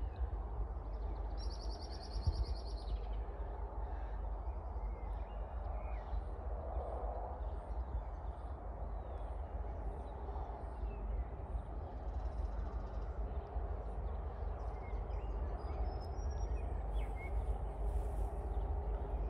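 Birds calling over a steady low rumble: a buzzy trill about a second and a half in, and short chirps near the end.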